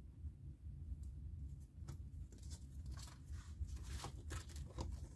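Paper and cardstock pages of a ring-bound recipe binder rustling as they are turned by hand, with the rustles coming mostly from about halfway through, over a low steady hum.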